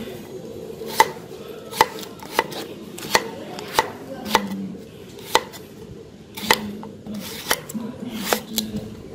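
Large kitchen knife slicing a peeled bamboo shoot into rounds on a thick wooden chopping block: sharp knocks of the blade striking the wood, about a dozen at a little over one a second, unevenly spaced.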